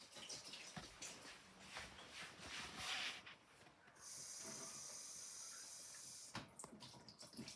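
Kitchen faucet running a thin stream of water over an emptied eggshell held above a stainless steel sink: a faint, steady hiss that starts about halfway through and cuts off about two seconds later. Faint handling noises come before it.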